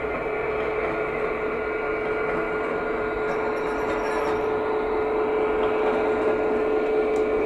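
An OO gauge Class 66 model locomotive's DCC sound decoder playing a steady diesel engine sound through its small speaker as the model moves off slowly, with the low-speed creaking of wheels on rails from its flange-squeal function.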